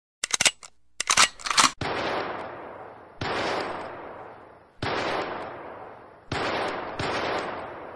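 Gunfire sound effects: a quick burst of rapid machine-gun shots, then five single heavy shots, each ringing out and fading over about a second, the last two close together.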